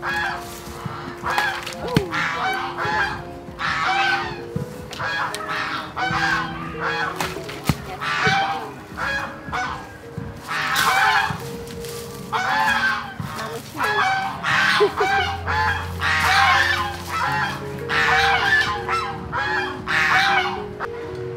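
Geese honking in repeated short calls over soft background music.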